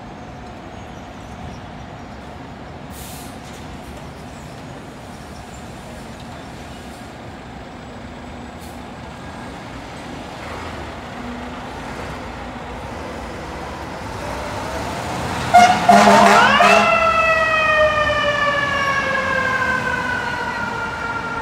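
A 2013 Seagrave Marauder II fire engine running and pulling out, getting louder past the middle. About three-quarters of the way in there is a short loud blast, then a mechanical siren spins up quickly and winds down slowly.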